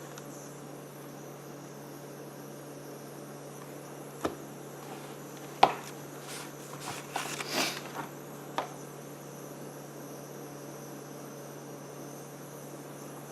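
A handful of short clicks and knocks, as objects are handled and set down on a workbench, bunched in the middle and loudest about five and a half seconds in, over a steady low hum.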